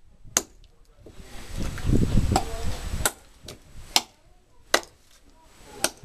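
Heavy hand-forged Big Bear knife chopping into a block of firewood: about six sharp blade strikes on the wood, spaced unevenly, most of them coming close together in the second half. Between about one and three seconds in there is a stretch of low rumbling noise.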